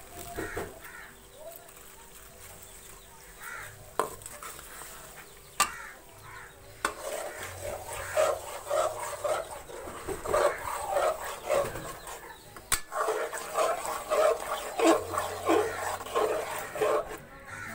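A slotted metal spoon stirring and scraping aloo keema in an aluminium pot, mixing in freshly added yogurt. A few isolated sharp knocks come first, then from about halfway on a busy run of quick, irregular scrapes.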